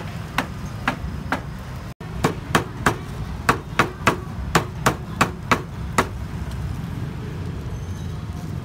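Meat cleaver chopping roast meat on a wooden chopping block: about fifteen sharp chops, a few spaced ones and then a quicker run of about three a second, stopping about six seconds in. A steady low background hum runs underneath.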